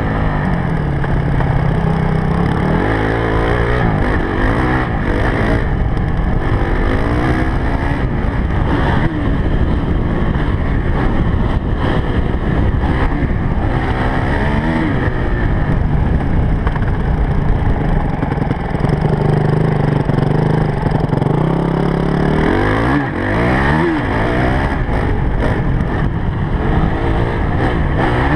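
Honda CRF250X dirt bike's four-stroke single-cylinder engine running under way, its pitch rising and falling several times as the throttle is opened and shut through the gears.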